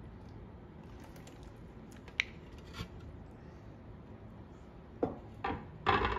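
Clear plastic lid being lifted off a natto maker and handled: a few faint clicks, then several louder knocks and clatters near the end.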